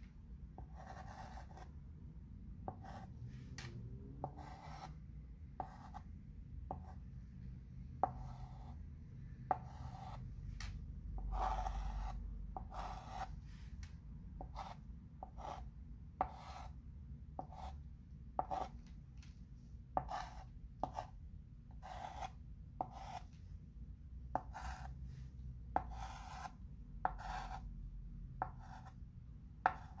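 Chalk pencil scratching on a chalkboard in short, irregular strokes about once a second as lettering is traced and shaded, with a few sharper ticks of the tip against the board.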